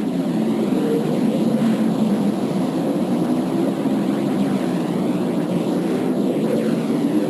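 Steady, dense, low droning rumble presented as the sound of a planet, with a faint high steady hiss above it.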